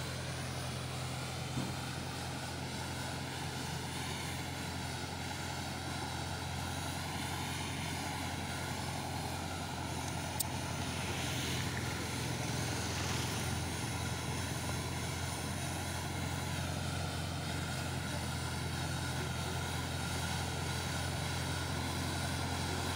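Diesel tractor engine running at a steady drone while it drives a tractor-mounted hydraulic road-sweeper brush along the road. A brief click about ten seconds in.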